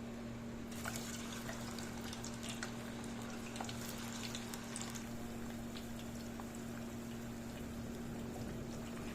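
Cut potato chips going into hot cooking oil, sizzling with many quick crackles and pops that start about a second in, dense for several seconds and then lighter. A steady low electrical hum runs under it.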